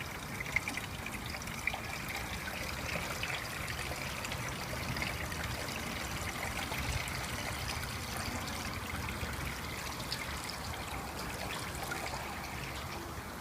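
Water being poured steadily into a car's windscreen washer reservoir, trickling as it fills to the top.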